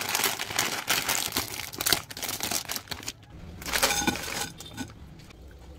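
Plastic Buldak ramen packet crinkling loudly as it is handled, then crinkling again in a shorter burst about four seconds in as the dried noodle block slides out of it into a pan.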